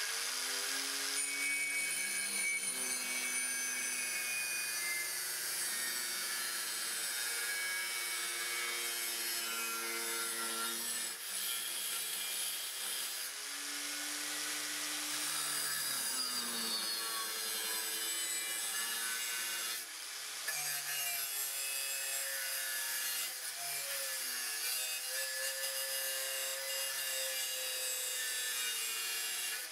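Angle grinder running and grinding a steel bar, a steady whine over a hiss of abrasion, the whine shifting and dipping in pitch now and then as the disc is pressed into the metal.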